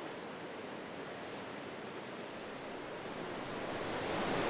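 Ocean surf washing in a steady hiss, swelling louder near the end as a wave builds.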